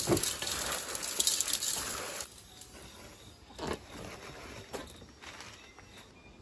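Coarse salt sprinkled by hand over cut napa cabbage in a stainless steel bowl, salting it for kimchi: a crackling patter of grains for about two seconds. Then a single thump as the bowl is moved and set down on the wooden table, followed by a few light knocks.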